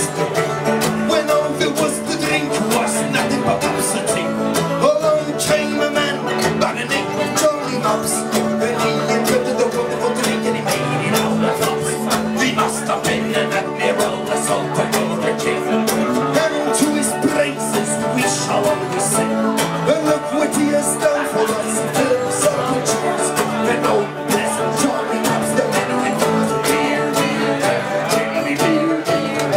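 Live acoustic band playing an Irish folk drinking song, with a strummed acoustic guitar and a picked banjo.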